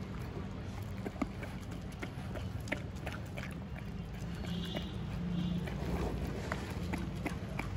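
Dogs eating dry kibble off a concrete floor: irregular crisp crunches and clicks of teeth on the pellets, over a steady low background hum.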